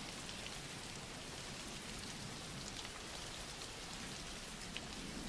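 Rain falling steadily, a soft, even hiss.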